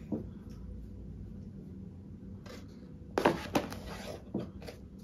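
Hands rummaging in a cardboard box, with packaging rustling and a few sharp clicks and knocks as accessories are handled, the loudest cluster a little after three seconds in. A faint steady hum lies underneath.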